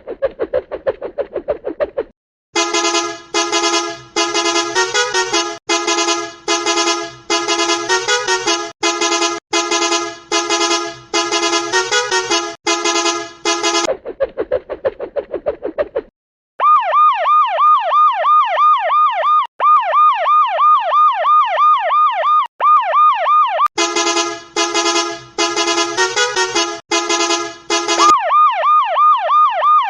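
Emergency vehicle sirens and horn honking in an animation soundtrack. Loud horn blasts come in rhythmic bursts, alternating with a fast, rapidly repeating yelping siren, with a faint quick ringing in the short gaps between.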